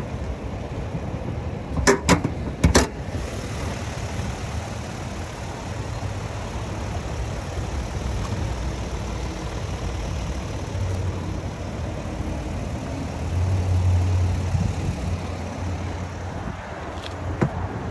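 A Toyota Tundra's hood being unlatched and lifted: three sharp metal knocks close together about two seconds in, and a lighter click near the end, over a steady low rumble.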